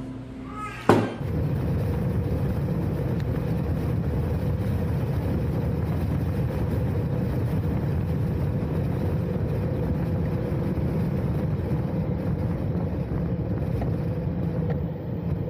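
Harley-Davidson V-twin motorcycle engine running steadily at cruising speed, mixed with road and wind noise. It cuts in sharply about a second in and holds an even level throughout.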